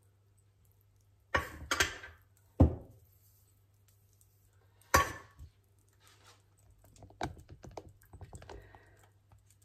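A few sharp knocks and clinks of a small container against a stainless steel mixing bowl as sugar is tipped in, the loudest two about two and a half and five seconds in, followed by lighter clicks of kitchenware being handled.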